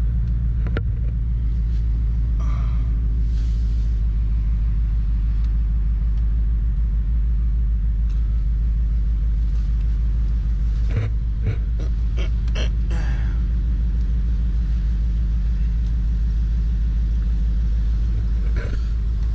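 Pickup truck's engine running at low speed, a steady deep rumble heard from inside the cab as the truck is reversed and driven slowly to park. A few short clicks a little past the middle.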